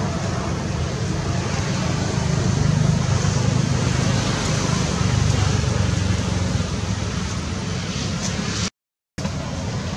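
A steady rumbling noise, heaviest in the low range, broken by a brief silent gap about nine seconds in before it resumes.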